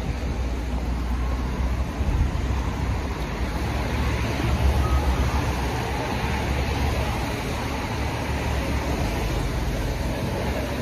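Outdoor street noise: a steady low rumble of traffic and wind on the phone's microphone, swelling louder around two seconds and again around five seconds in.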